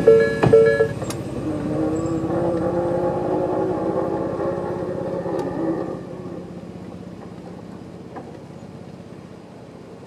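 Electronic level-crossing warning bell (Tobu-style tone) ringing about twice a second, cutting off about a second in as the warning ends. Then the electric crossing barriers (Nippon Signal EM1029A) lift, their motor giving a steady whine that rises slightly in pitch for about four seconds and stops around six seconds in.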